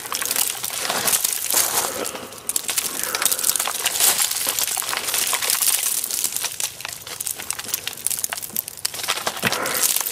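Ice-coated grass and dead leaves crunching and crackling underfoot, a dense run of crisp crackles that dips briefly about two seconds in.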